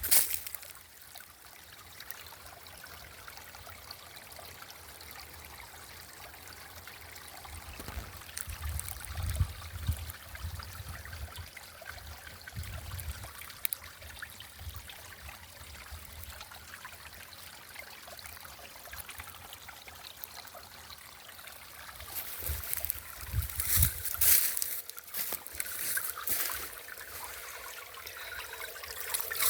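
Small stream of water trickling and babbling steadily, with louder stretches about a third of the way in and again near the end.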